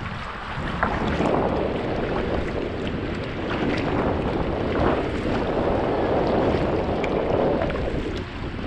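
Kayak paddle strokes splashing and dripping into the sea, swelling and easing every second or so, with wind rumbling on the microphone.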